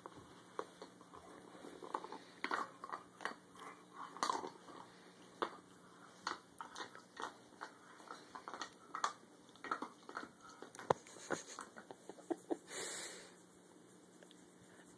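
German Shepherd puppy gnawing on an antler: irregular crunches and clicks of teeth scraping the hard antler, with a short rush of noise near the end.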